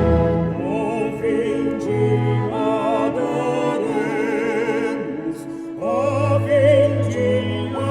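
Music: a singer with a wide vibrato, each phrase sliding up into long held notes, over sustained orchestral-style accompaniment.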